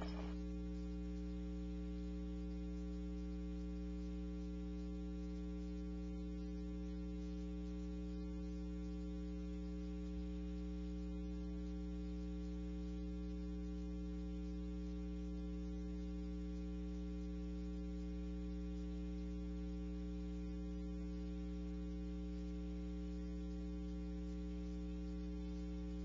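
Steady electrical mains hum: a low, unchanging buzz made of several fixed tones, with nothing else over it.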